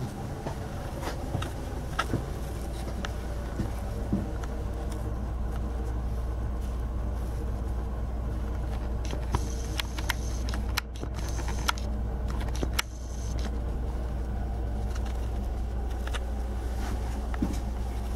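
Steady low machinery hum of a cruise ship's engines and ventilation, heard inside an aft cabin, with a few light clicks from handling the camera.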